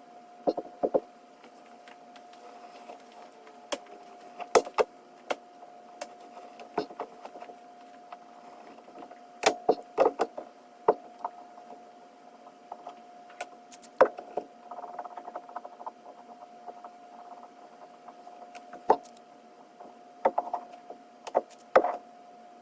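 Irregular sharp taps and knocks of hand tools and leather-hard clay slabs being worked on a table, with a brief scraping stretch in the middle, over a steady faint high hum.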